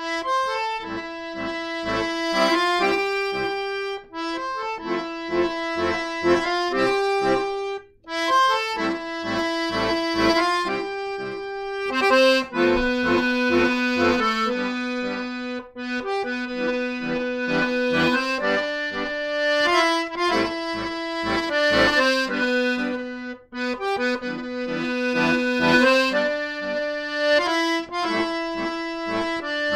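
Piano accordion playing a traditional tune: a melody on the right-hand keys over a steady pulse of left-hand bass notes and chords, with short breaks between phrases.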